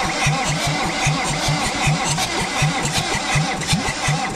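Land Rover 200Tdi four-cylinder turbodiesel being cranked over on its starter motor, an even rhythmic chug of about four compression strokes a second, without starting.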